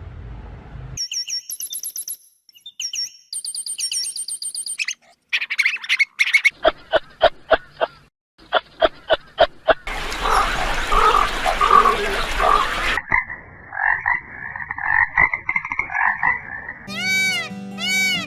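A series of short animal calls, one clip after another: high chirping, then a run of rhythmic croak-like pulses at about four a second, then more calls and a trill. Music with a melody starts near the end.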